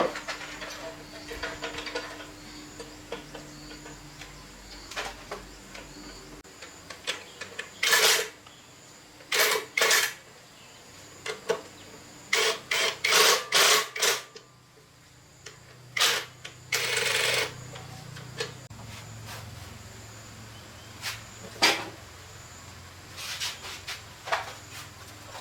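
Irregular clinks and knocks of metal tools and parts being handled during motorcycle repair work, with a quick run of clicks about halfway through and one longer rasping burst a little later.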